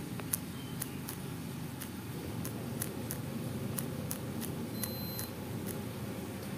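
Light, irregular clicks of a phone number being tapped in on a smartphone keypad, about a dozen taps, over a steady low background hum. A brief high beep sounds about five seconds in.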